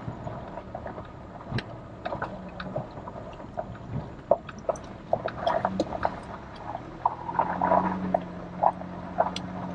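Four-wheel-drive vehicle crawling over a rough dirt and gravel trail, heard from inside the cab: irregular knocks and rattles from the tyres and suspension over the bumps, with a low engine hum that grows steadier in the last few seconds.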